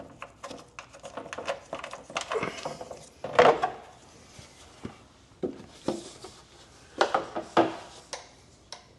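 Scattered clinks, knocks and rubbing of tools and parts being handled while a skid plate is worked on, with louder clanks about three and a half and seven seconds in.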